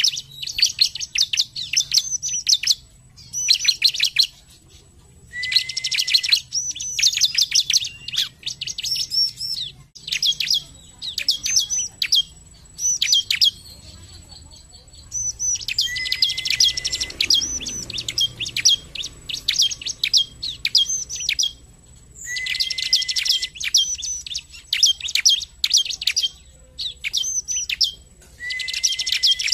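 Bar-winged prinia (ciblek) singing: repeated bursts of fast, high chirps with short pauses between them. Several bursts open with a short lower note.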